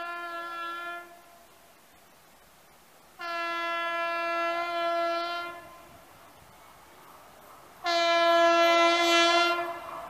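Horn of an approaching Indian Railways electric locomotive sounded three times: a first blast fading in and ending about a second in, then two steady blasts of about two seconds each, the last one the loudest.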